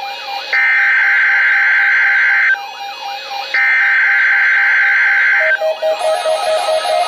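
Two bursts of a NOAA Weather Radio SAME digital header, a warbling data tone about two seconds long each, one second apart. It is the coded header that opens a Required Weekly Test. Music plays underneath and continues after the second burst.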